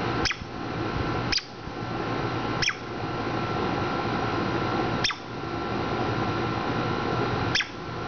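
Five short, high bird whistles, each sliding down in pitch, a second or two apart, over a steady hum and hiss.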